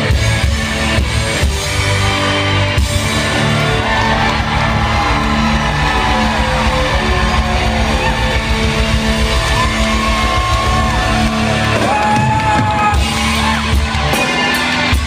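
Live rock band playing loud, with electric guitars and drums, heard from within the audience.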